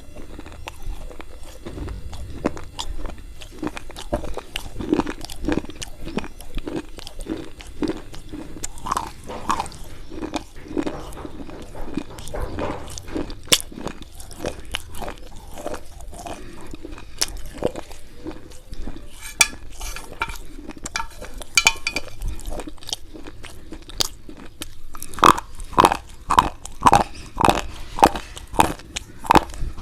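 Slate pencils coated in white khadi chalk paste being bitten and chewed close to the microphone: a steady run of gritty crunches, then a series of louder bites about two a second near the end.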